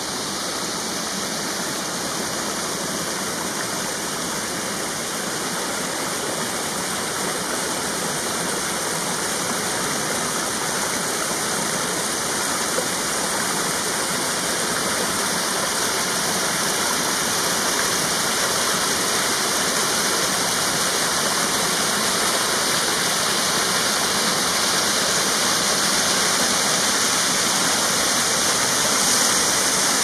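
Small waterfall: creek water pouring down a narrow rock chute in a steady rushing splash, growing gradually louder.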